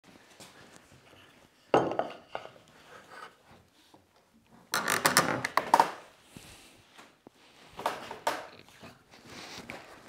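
Wooden parts of a homemade all-timber camlock leg vise knocking and clattering as it is handled and clamped: a loud knock about two seconds in, a rapid cluster of knocks and clatter around five seconds, and two more knocks near eight seconds.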